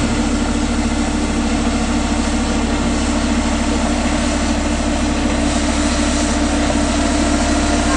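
Patria AMV 8x8 armoured vehicle's diesel engine running at low, steady revs as the vehicle descends a steep ramp.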